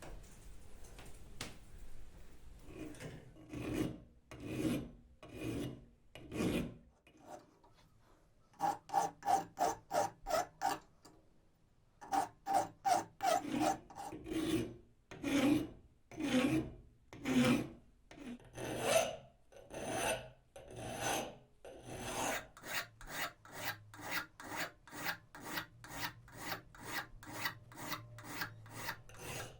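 A hand file scraping back and forth over the axe in repeated strokes. It starts with slow, separate strokes, then comes in quick runs of about four strokes a second, with a brief pause in the middle. Some strokes carry a faint ringing tone.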